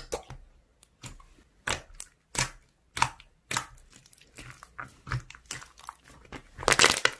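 Slime being squeezed and pressed by hand, making separate sharp clicks and pops about every half second, with a quick run of them near the end.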